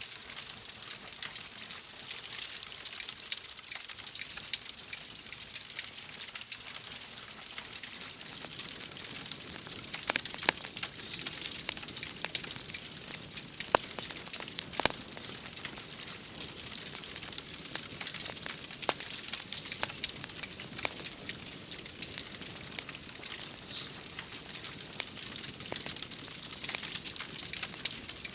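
Wood fire crackling in a fireplace, with scattered sharp pops that come more often after about eight seconds in, over a steady hiss of rain.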